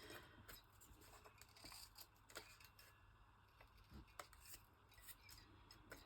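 Scissors snipping paper in faint, irregular snips, fussy-cutting closely around a printed picture.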